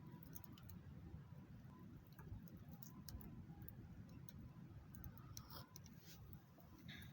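Faint, scattered small clicks and crackles over a low background rumble.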